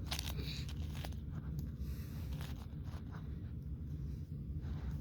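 Plastic 5x5 puzzle cube being turned by hand: a run of irregular clicks and scrapes as the layers are twisted, over a steady low hum.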